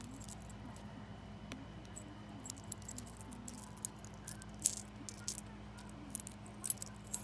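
Small metal keychain clinking and jingling as it is turned over in the fingers: scattered light clicks of the split ring and charm knocking together, the loudest a little past halfway.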